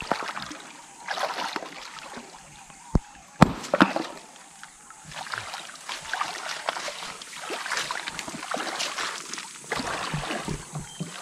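Shallow river water sloshing and splashing irregularly as hands and legs work in it, with scattered clicks and a couple of sharp knocks about three seconds in.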